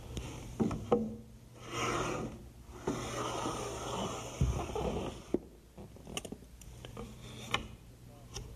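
Wooden door-jamb stop being worked and fitted: scraping and rubbing of wood on wood, in two stretches, with a few sharp knocks.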